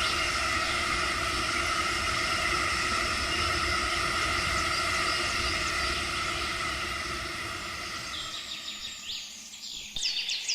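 A train running with a steady hum of several tones, fading away from about six seconds in. Birds start chirping, short falling calls, about eight seconds in.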